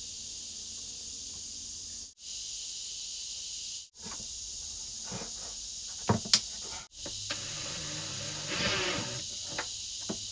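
Steady high-pitched chorus of evening insects, cut off briefly four times. About six seconds in come a few sharp clicks, and near nine seconds a louder rustle, as electrical cable is handled, stripped and crimped with pliers.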